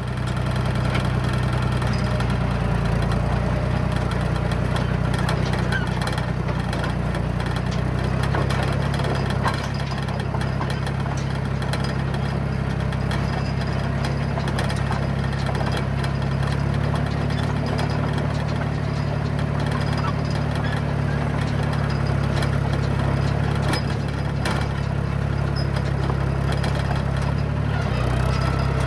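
John Deere crawler dozer's diesel engine running steadily as the machine drives along, its pitch shifting slightly a few times, with a couple of sharp clanks.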